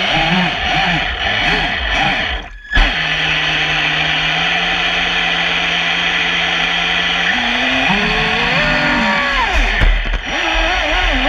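Traxxas Spartan RC boat's brushless electric motor whining. Its pitch swings up and down with quick throttle blips at first, holds steady for several seconds, then rises and falls again near the end.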